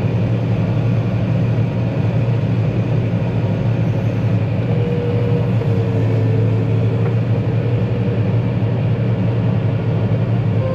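Combine harvester's engine running steadily with a low, even drone. A faint thin whine comes in over it for a couple of seconds in the middle.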